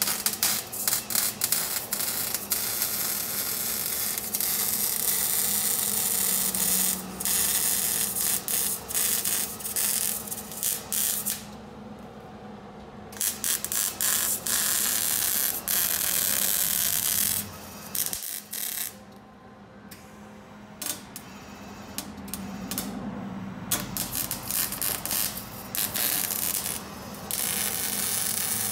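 MIG welding arc crackling and hissing as exhaust pipe is welded, starting with short stuttering bursts and then running in long beads broken by a few pauses.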